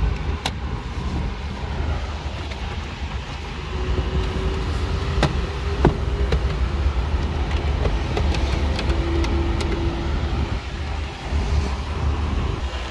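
Honda CR-V's 2.4-litre four-cylinder engine idling, a steady low rumble heard from inside the cabin. A few sharp clicks come from the sun visor and its vanity mirror cover being snapped shut.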